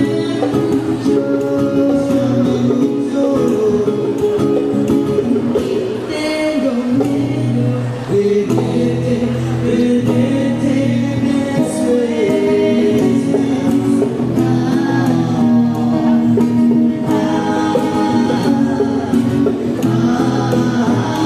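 Live band performance: a singer over guitar and other plucked strings.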